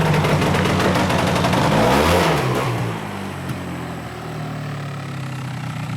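Small vehicle engine running, its pitch sweeping up and down about two seconds in, then settling to a lower, quieter steady run.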